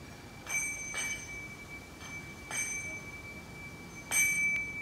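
A small bell struck about six times at uneven intervals. Each strike rings with the same clear high tone, which lingers between strikes.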